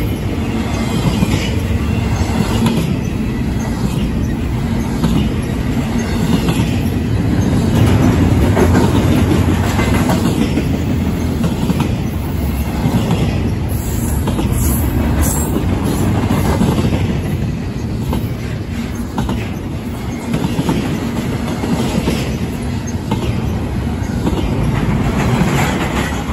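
Double-stack intermodal freight train's well cars rolling past close by: a steady loud rumble of steel wheels on rail with repeated clickety-clack over the rail joints and a brief high squeal about halfway through.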